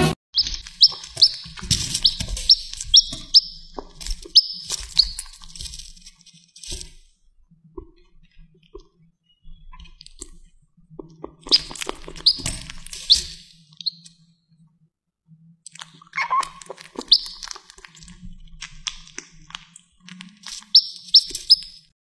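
A young chick peeping in runs of short, high cheeps, several a second, in three bouts with pauses between. Light clicks and taps sound in between.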